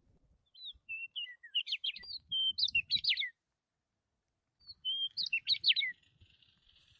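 A songbird singing: two phrases of quick chirps and warbled whistles, the first a little after the start and the second just under five seconds in.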